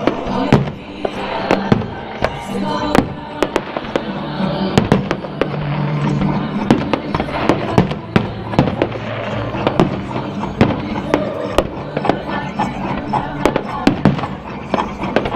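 Fireworks going off in rapid succession, dozens of sharp bangs and crackles, over music playing throughout.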